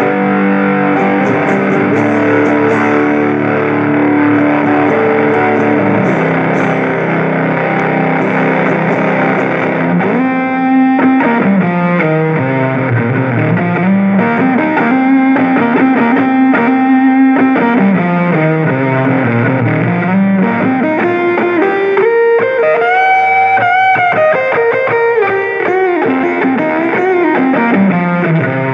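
Squier Stratocaster played through a Fender Champion 20 amp with dirt pedals for a distorted, Marshall-like tone. Thick sustained chords ring for about ten seconds, then a single-note lead line follows with slides and bends.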